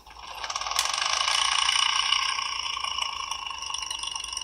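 Toy helicopter giving off a steady, high whirring rotor sound with a fast flutter, building up over the first second.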